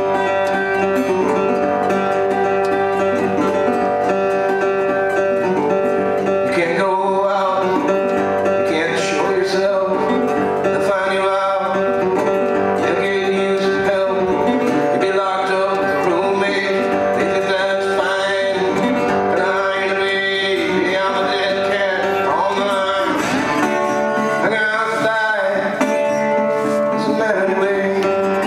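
Acoustic guitar playing a country-blues tune, a low note held ringing beneath the picked melody.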